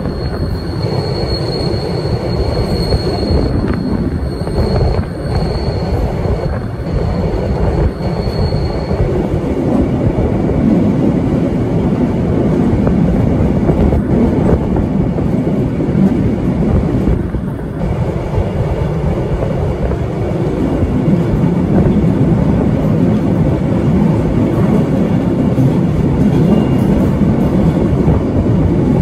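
Tait electric suburban train running along the track, with a thin steady high squeal over roughly the first nine seconds.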